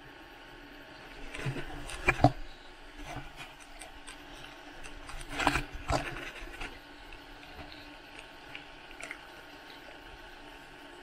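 Seawater sloshing and slapping against a waterproof camera case held at the surface, with two louder bursts of splashing about two seconds and five and a half seconds in.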